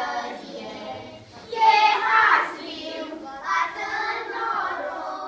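A group of young children singing a song together in short phrases, with brief pauses between lines.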